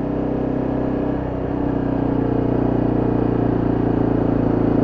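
Honda CRF250M single-cylinder engine, fitted with an aftermarket muffler, running steadily. Its sound shifts slightly about a second in and then grows a little louder.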